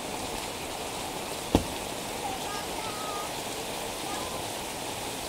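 Steady rain falling on a paved street and roofs, a constant hiss. About a second and a half in, one sharp thump stands out above the rain.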